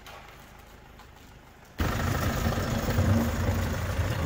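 Faint background, then just under two seconds in a tow truck's engine cuts in abruptly and runs steadily as the truck pulls a heavy spoke-wheeled cannon carriage.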